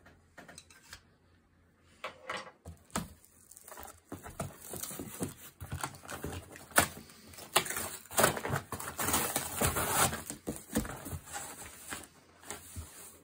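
Cardboard shipping box being opened by hand: crackling, scraping and rustling of the cardboard flaps and packing tape. It is quiet at first, grows busy from about four seconds in, and is densest a few seconds later.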